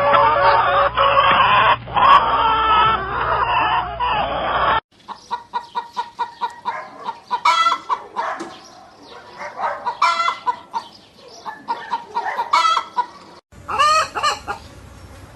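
Domestic chickens clucking. A loud, dense chorus of several birds fills the first few seconds, then breaks off suddenly. After that come quieter runs of short, repeated clucks, with a louder call about every two and a half seconds.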